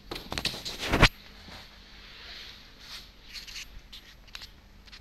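A cat moving about in a cardboard box: a loud clatter of knocks and rustling in the first second, sharpest about a second in, then scattered light clicks and short rustles of cardboard.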